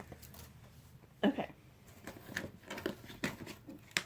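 Scattered soft clicks and rustles of small items and packaging being handled, with one brief spoken "okay" about a second in.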